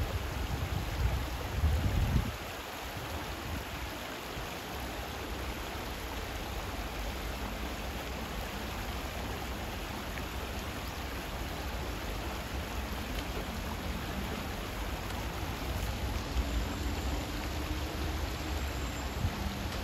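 Shallow stream running steadily over pebbles and around rocks. A low rumble sits under it for the first two seconds.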